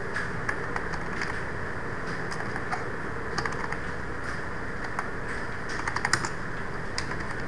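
Computer keyboard being typed on: irregular single keystrokes with pauses between them, and a quicker run of clicks about six seconds in.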